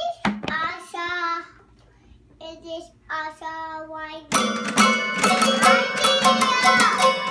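A small electronic keyboard played by a child: after a few short bits of child's voice, about four seconds in, many notes are struck quickly and at once and ring on loudly until the end.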